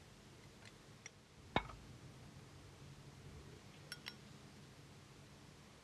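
Faint room tone with a low hum, broken by one sharp clink or knock about a second and a half in that rings briefly, then two light clinks close together about four seconds in.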